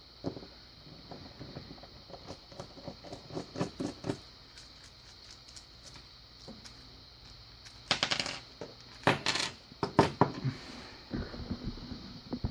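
Small metal tools and lock parts being handled on a hard surface: scattered light clicks and taps, then a few sharp, ringing metallic clinks past the middle and again near the end.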